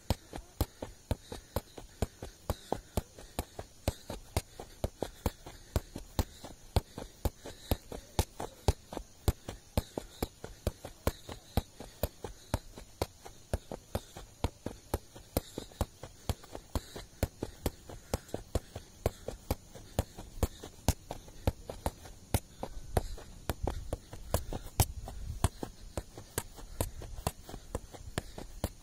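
A worn leather football struck again and again by a player's feet and thighs as he keeps it in the air, a steady run of dull kicks at about three touches a second. A low rumble comes in near the end.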